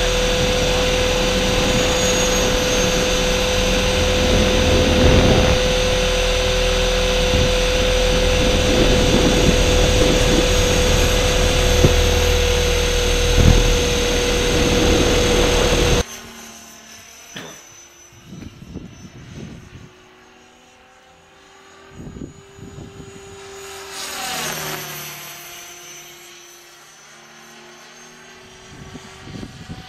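Onboard audio of a model quadcopter in fast FPV flight: a loud, steady motor whine with heavy wind and vibration noise. It cuts off suddenly about halfway through. What follows is a much fainter whine from a small RC aircraft flying high overhead, wavering in pitch and swelling now and then.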